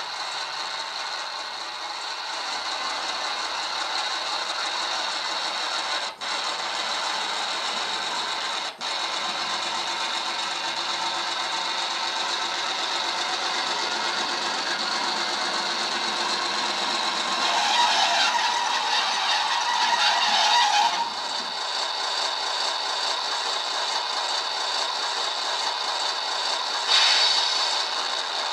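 Sound-decoder diesel engine of an HO-scale X 5800 railcar model, played through the model's small speaker as it runs. The engine sound grows louder for a few seconds past the middle and again briefly near the end. It cuts out for an instant twice, typical of the decoder losing track power, since the model has no power-pack energy store.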